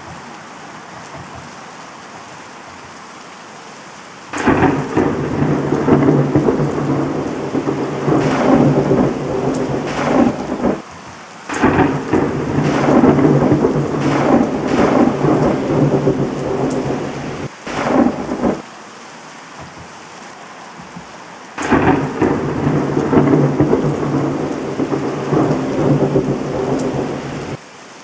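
Simulated storm sound: steady rain hiss with loud rolling thunder. Three long peals of about six seconds each start about four, twelve and twenty-two seconds in, and a short crack comes at about eighteen seconds.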